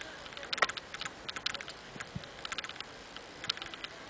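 Footsteps of people walking on a stone-paved street: quick, irregular clicking of shoes and sandals on the paving.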